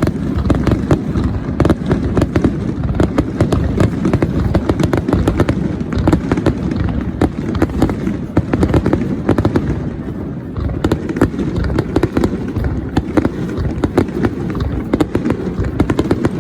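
Aerial fireworks bursting in a rapid, continuous barrage of bangs and crackles, with no pause.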